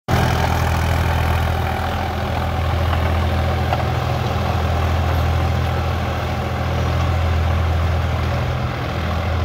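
Sonalika DI 42 RX tractor's diesel engine running steadily under load while driving a rotavator that tills the soil.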